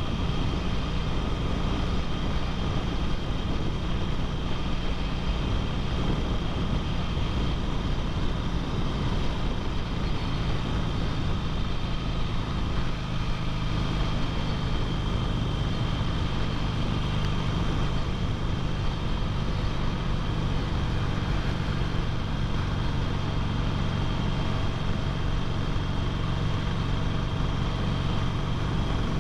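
Harley-Davidson Sportster's V-twin engine running steadily at cruising speed, heard from the rider's seat.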